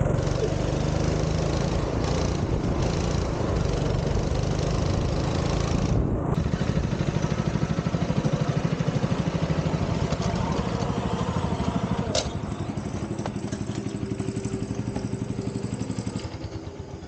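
A rental go-kart's small engine runs steadily, heard from the driver's seat. About twelve seconds in there is a sharp click and the engine note drops. The sound falls away further near the end as the kart slows to a stop.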